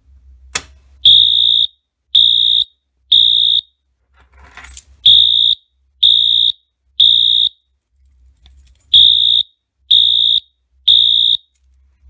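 The Fire-Lite BG-12 pull station's handle clicks down about half a second in. Then the Wheelock AS-24MCC horn strobe sounds a loud, high-pitched electronic horn in the temporal-three evacuation pattern: three short blasts, a pause, repeated three times.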